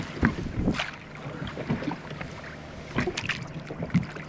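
Water slapping against a small boat's hull, with a low steady hum and several sharp knocks and clatter of gear on the boat as a fish is played and the landing net is brought over the side; the loudest knocks come near the start and about four seconds in.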